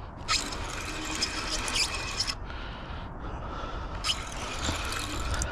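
Fishing reel ratcheting in two spells, the first about two seconds long and the second about a second, as a hooked striped bass is played on the line.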